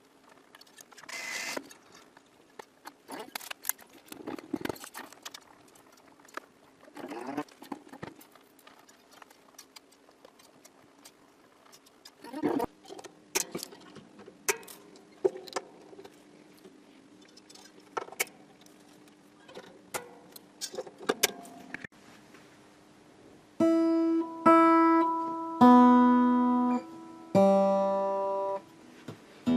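A Fender Gemini II acoustic guitar being strung: scattered clicks and rustles as the strings are handled and wound on. About 23 seconds in, several single strings are plucked one at a time and left to ring while it is brought up to pitch.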